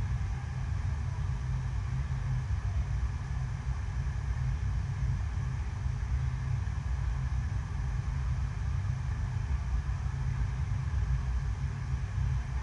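Water rushing over the ride surface of an indoor artificial sheet-wave surf machine running with no rider: a steady low rumble with a fainter hiss above it.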